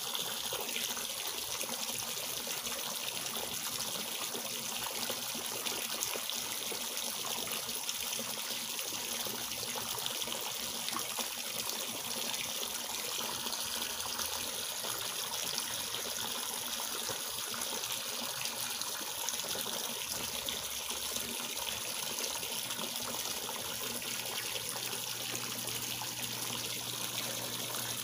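Water pouring from a spout into a garden fish pond, splashing steadily onto the surface.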